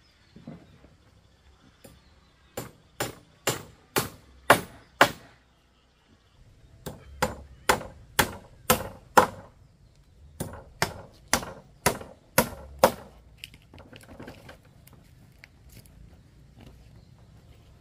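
A hand tool striking wood in quick runs of blows, about two a second: six strikes, then five, then five, with fainter knocks after.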